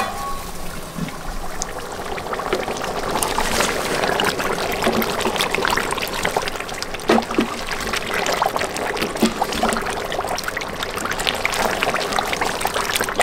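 Chicken curry boiling hard in a large aluminium pot over a wood log fire, the sauce bubbling and spluttering steadily with scattered pops, a wooden spoon stirring through it.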